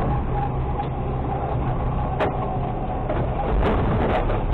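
Automated side-loader garbage truck's engine running steadily, with a single sharp click about two seconds in. Near the end a cart is tipped over the hopper and bags of trash drop in with a cluster of knocks and clatter.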